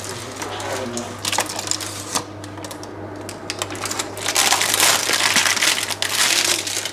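Baking paper crinkling and rustling as hands handle a paper-lined baking tin holding a baked meringue layer, with a few knocks of the tin on the glass cooktop. The crinkling is densest from about four seconds in, over a steady low hum.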